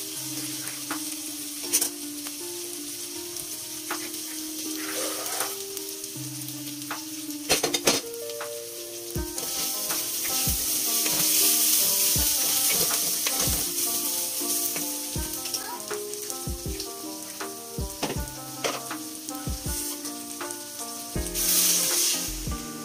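Raw rice frying in a hot aluminium pot, sizzling steadily as a wooden spoon stirs it, with the sizzle swelling a while in. There is a brief clatter about eight seconds in, and near the end water poured onto the hot rice sets off a loud hiss.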